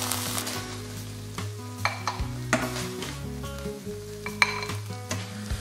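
Fried rice with duck sizzling softly in a pan as a metal spoon stirs and scoops it, clinking against the pan a few times. Soft background music with sustained tones runs underneath.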